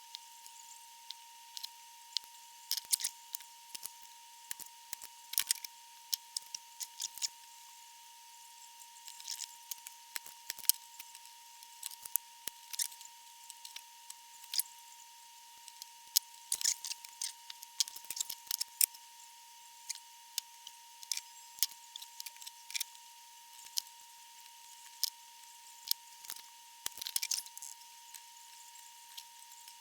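Small hand tools working on a valve amplifier chassis during re-capping: irregular sharp clicks and snips, the sound of component leads being cut and handled, over a faint steady high whine.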